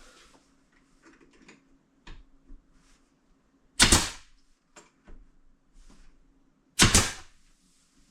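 Two loud, sharp knocks about three seconds apart, with faint clicks and taps between them.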